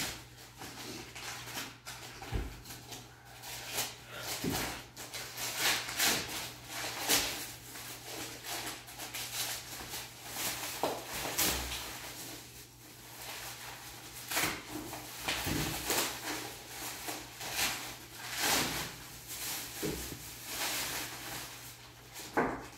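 Crumpled packing paper and plastic wrap rustling and crinkling in irregular handfuls as it is pulled apart and pushed aside, with a few dull knocks.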